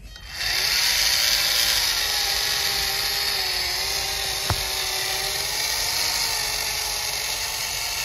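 Small electric drive motor and gearbox of a homemade radio-controlled model tractor whining steadily under load as it pulls a cultivator through sand, starting just after the beginning, its pitch wavering slightly. A single sharp click about halfway through.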